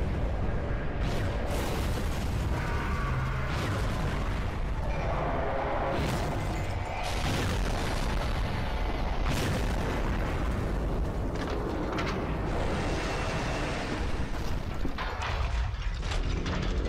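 Sound effects of an animated robot battle: repeated explosions and booms over a continuous low rumble, with many sharp hits throughout.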